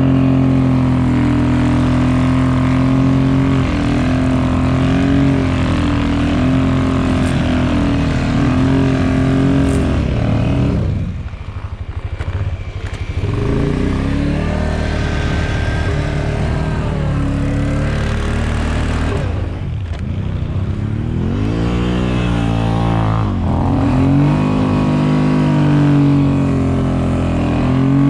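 ATV engines running under load and revving, the pitch rising and falling again and again as the throttle is worked, with the revs dropping away briefly about eleven seconds in and again around twenty seconds.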